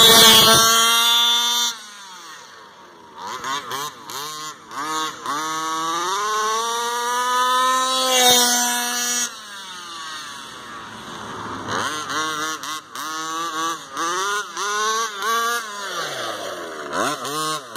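Small two-stroke petrol engine of a 1/5-scale RC baja buggy revving up and down under throttle. It is loudest at the start, climbs in long revs through the first half, and ends in quick, repeated throttle blips.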